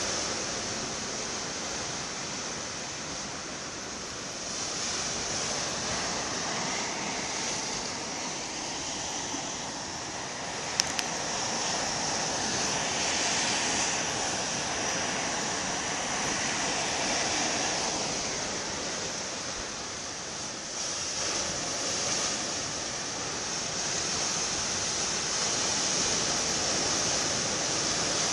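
Sea waves and wind: a steady rushing hiss that swells and ebbs every few seconds, with a single sharp click about eleven seconds in.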